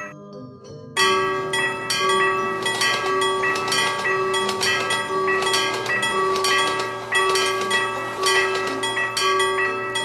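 Railroad crossing warning bells ringing in quick repeated strikes, several a second, starting about a second in, with a steady tone that switches on and off in an even rhythm underneath.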